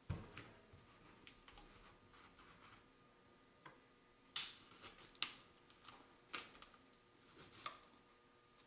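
Kitchen knife cutting the peel off an orange on a plastic cutting board: a handful of sharp knocks as the blade meets the board, the loudest about four and a half seconds in, with faint cutting and rustling between.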